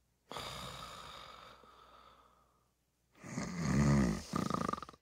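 A person snoring: a softer breath that fades out over about a second, a pause, then a louder snore about three seconds in.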